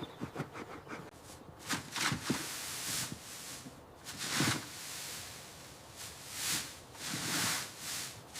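Horse breathing heavily: a series of long, breathy blows, about five over several seconds.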